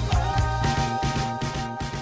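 Background music: a song with sustained notes over a steady beat and bass line, beginning to fade near the end.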